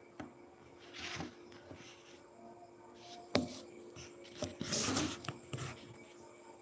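Handling noise from a phone being picked up and turned: irregular rubbing and rustling against its microphone, with a click near the start and a sharp knock a little after three seconds in.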